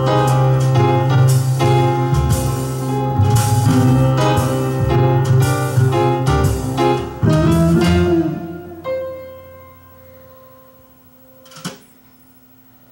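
Instrumental music played from a CD changer through small speakers, ending with a fade-out about eight seconds in. A single short click follows near the end, in the quiet gap before the next track.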